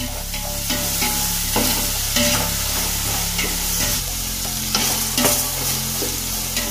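Sliced onions, tomato and green chillies sizzling as they fry in a metal pot, stirred with a metal ladle that scrapes and knocks against the pot again and again.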